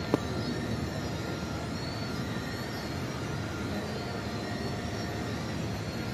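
Steady rushing ambient noise with no clear single source, and one sharp click just after the start.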